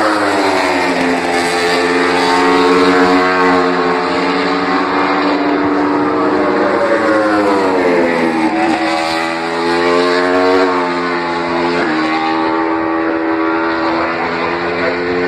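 Grand Prix racing motorcycles running at high revs past the grandstand, loud and continuous, the engine pitch dipping and climbing with a sudden jump in pitch about twelve seconds in.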